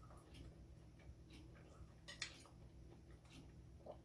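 Near silence with faint, scattered mouth clicks of someone chewing food, one sharper click about two seconds in, over a low steady hum.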